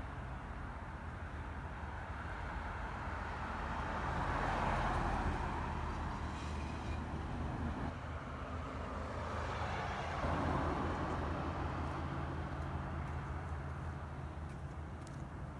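Cars driving past on a street: two passes swell and fade, a few seconds in and again about ten seconds in, over a steady low hum.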